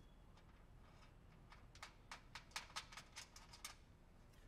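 Threaded steel fixturing riser and its locking nut being turned by hand in a hole in the side of a steel welding table: a quick run of about ten light clicks over about two seconds, starting near the middle.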